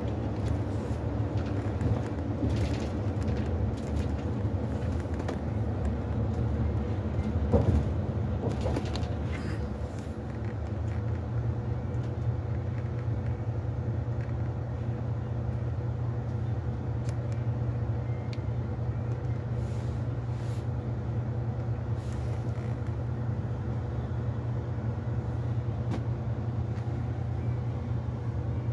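Coach engine running, heard inside the passenger cabin as a steady low hum. Occasional short knocks and rattles come through it, with one louder knock about seven seconds in.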